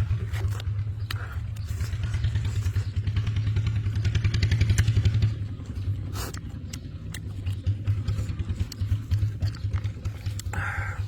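A small engine running steadily with a fast low putter, swelling louder about four seconds in and easing off again after five, with scattered light clicks over it.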